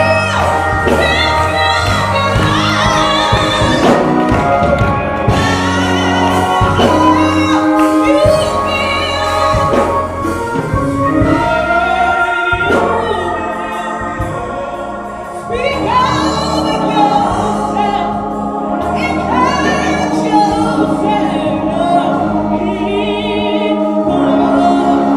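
Gospel choir singing with instrumental backing.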